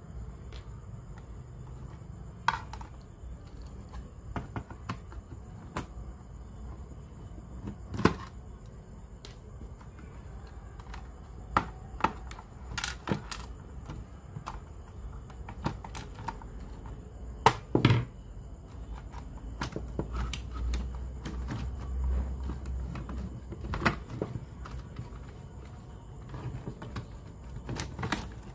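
Irregular clicks and light knocks from tools and small plastic and metal parts being handled during a cassette player repair, with a faint steady high whine underneath.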